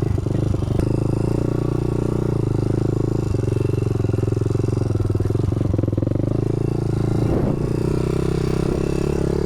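Honda dirt bike engine running at a fairly steady pitch under way on a trail, with a few short knocks and clatters from the bike over rough ground.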